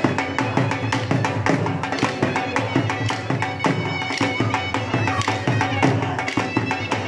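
Dhol barrel drum beaten with sticks in a fast, steady rhythm under a sustained, reedy shehnai melody: live Pothwari folk wedding dance music.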